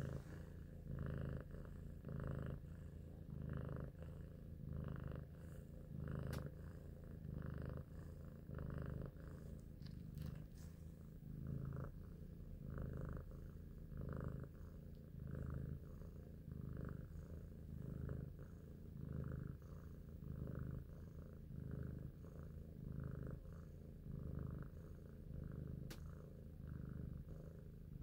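Domestic cat purring steadily while being stroked, the purr swelling and easing with each breath about once a second.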